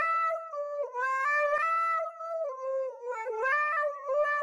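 Husky howling into a handheld karaoke microphone: one long, wavering howl that steps up and down in pitch, with a few brief dips.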